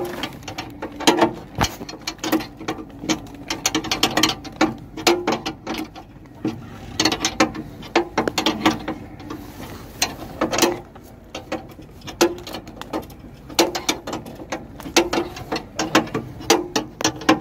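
Irregular clicking and rattling from hands working at plastic connectors, modules and terminal blocks inside a metal electrical cabinet, as connectors are pressed and checked for a loose fit.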